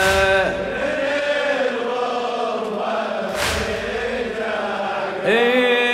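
Men's voices chanting the refrain of a Shia latmiyya mourning chant in unison, on long, drawn-out notes, with a heavy thump about every three and a half seconds in time with the chant. Near the end a single louder voice takes up the line.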